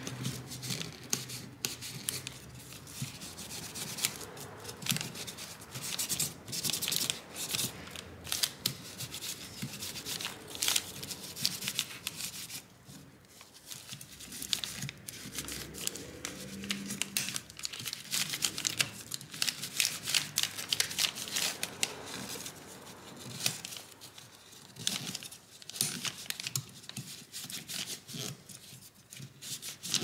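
Hands wiping and rubbing the plastic fan blades and shroud of a graphics-card cooler dry of silicone spray: irregular scratchy rubbing with small clicks and plastic crinkling, pausing briefly a couple of times.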